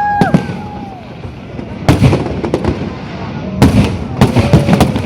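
Fireworks shells bursting overhead, a series of sharp bangs, several in quick succession near the end. A drawn-out, high-pitched exclamation from a person dies away just after the first bang.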